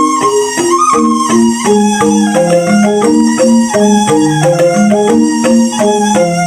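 Balinese rindik, a bamboo xylophone, played in a fast, even stream of interlocking mallet strokes, with a held higher tone over the notes near the start.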